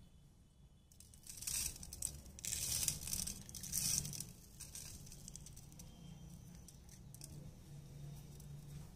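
Dry rustling and crinkling in a few short bursts between about one and four seconds in, as crisp sev is grabbed by hand and sprinkled over stuffed puris on a plate.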